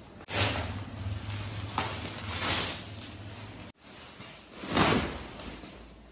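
Woven plastic courier sack and its packing tape rustling and tearing as the sack is cut open, in several loud swishes over a low steady hum. The sound stops suddenly, then comes one more loud rustle as the sack is pulled off a stack of cardboard parcels.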